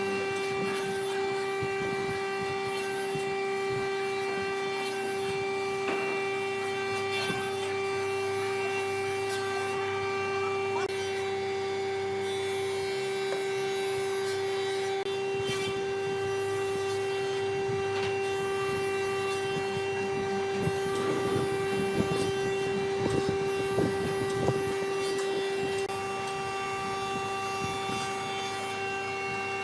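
An electric power tool's motor running with a steady whine, with rough scraping and rubbing against the workpiece in the second half. The whine drops away about three-quarters of the way through.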